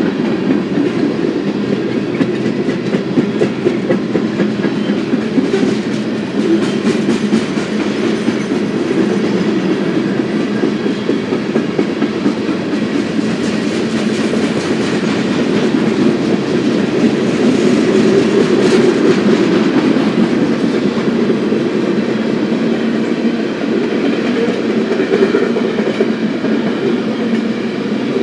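Freight cars of a BNSF grain train rolling steadily past, with a continuous rumble and clatter of steel wheels on the rails.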